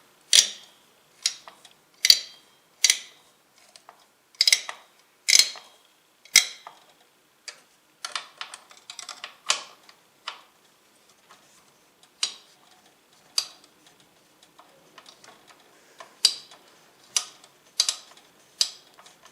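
CPU cooler mounting screws being tightened down with a screwdriver: a run of sharp, irregular metallic clicks, about one every half second to a second, coming closer together about eight seconds in.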